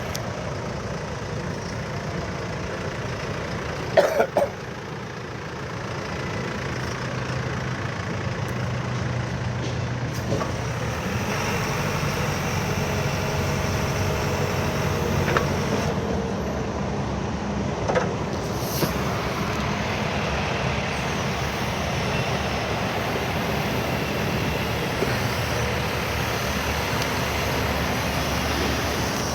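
JCB 3CX backhoe loader's diesel engine running steadily, with a short cluster of metallic clanks about four seconds in. After about six seconds the engine gets a little louder and stays there.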